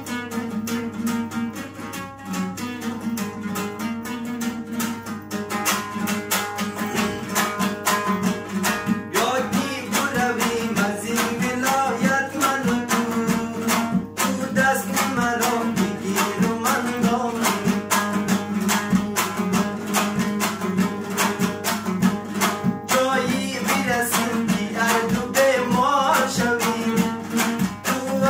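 A dambura, the long-necked two-string Afghan lute, strummed fast in a steady rhythm, with a man singing along from about nine seconds in.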